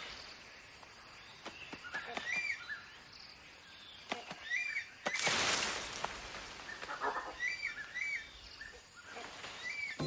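Rainforest ambience: a bird repeats a short chirped call every couple of seconds. A brief rustling rush of noise comes about five seconds in.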